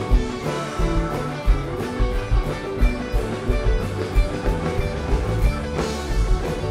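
Live rock band playing an instrumental passage: electric guitars, acoustic guitar, bass guitar and drum kit over a steady beat, with a cymbal crash about six seconds in.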